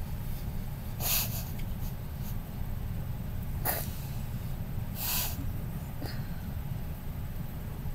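A person's short breathy exhales, like quiet laughter through the nose, three times over a few seconds, over a steady low background rumble.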